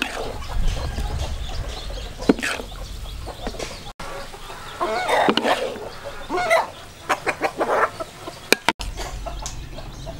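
Chickens clucking, with a string of short, quick clucks past the middle, over a low rumble.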